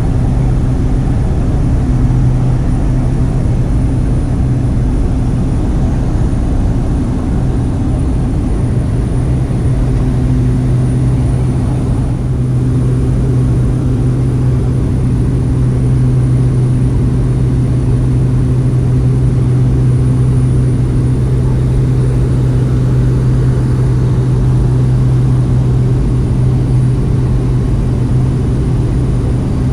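Propeller float plane's engine and propeller droning steadily, with a strong low hum and no change in power.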